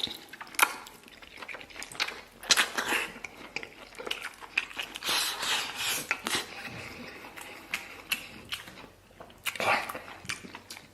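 A person chewing and biting into chewy stir-fried pig intestines, with irregular wet mouth sounds and smacks.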